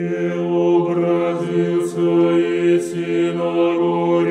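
Slow choral chant by low voices, sung on long held notes that barely change pitch, used as intro music.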